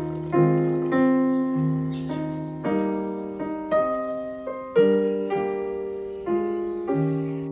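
Background piano music: a slow, gentle melody of single notes and chords, each struck and left to fade.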